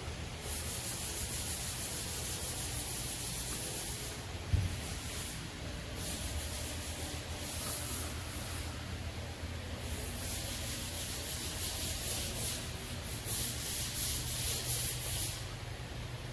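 Workshop background noise: a steady low hum with stretches of high hissing, rubbing sound that come and go every second or two, and a single sharp knock about four and a half seconds in.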